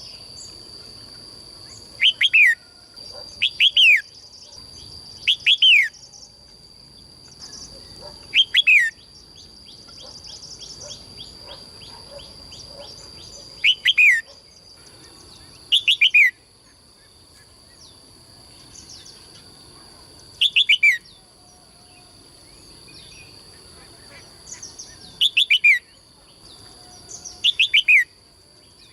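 Caged songbird singing short bursts of a few quick notes that slide down in pitch, repeated every two to three seconds, over a steady high-pitched whine.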